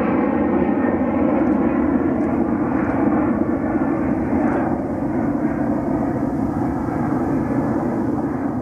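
Boeing 757 jet engines at takeoff power on a departure roll, a loud steady rush that slowly eases toward the end.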